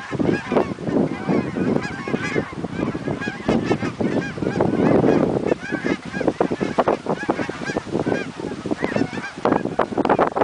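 A large flock of geese honking, many calls overlapping without a break.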